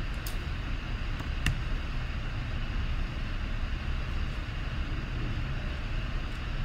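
Steady low rumble of background room noise, with two brief faint clicks, about a quarter second and a second and a half in.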